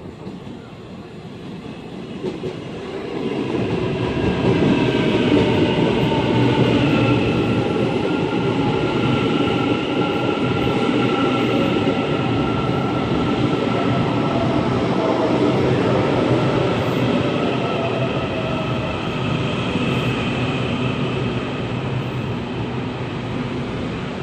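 A train running along the tracks at a railway station. It grows louder over the first few seconds, then keeps up a steady rumble and rail noise with whining tones that slowly fall in pitch.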